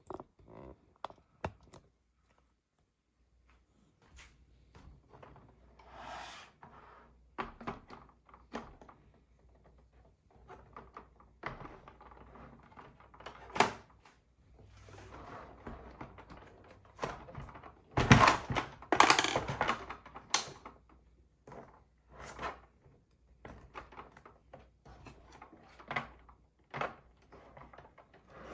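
Small plastic toy pieces being handled: a run of light clicks and knocks, with brief stretches of rustling, loudest about two-thirds of the way through.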